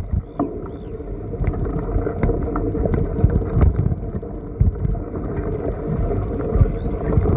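A bicycle pedicab ridden over bumpy grassy ground, with a steady rumble and irregular knocks and rattles from the frame as it jolts.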